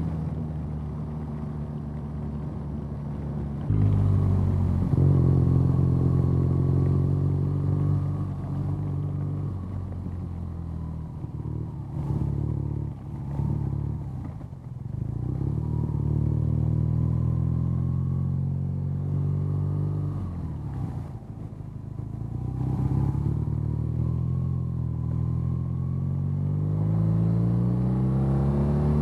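BMW R nineT's boxer twin engine running under way: it opens up about four seconds in, eases off and slows through a turn around the middle, then picks up again with rising pitch near the end.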